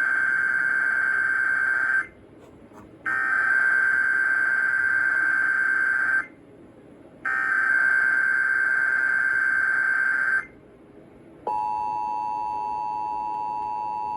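Emergency Alert System SAME header: three bursts of fast warbling digital data tones, each about three seconds long with a second's gap between them; the first is already under way and ends about two seconds in. About a second after the third burst, the two-tone EAS attention signal starts and holds steady. Together they open an EAS Required Weekly Test broadcast.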